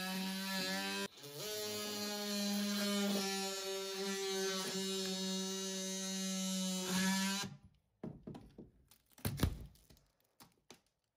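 Battery-powered DeWalt oscillating multi-tool buzzing steadily as its blade cuts through a fiberglassed wooden shelf, with a brief stop about a second in and its pitch dipping slightly under load. It stops after about seven and a half seconds, followed by a few knocks as the cut material is handled.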